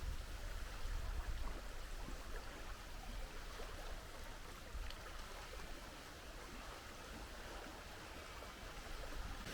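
Wind buffeting the microphone in a fluctuating low rumble over a steady rushing hiss, slowly easing off toward the end.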